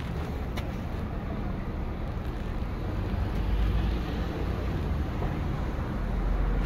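Steady low rumble of city street traffic, without a distinct single vehicle standing out.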